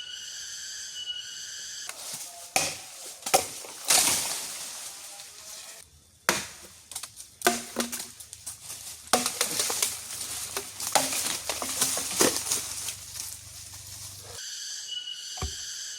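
Irregular crunching, cracking and knocking for about twelve seconds, the sounds of close-up handling of wood or forest litter. A steady, evenly pulsing drone sits under the first two seconds and returns near the end.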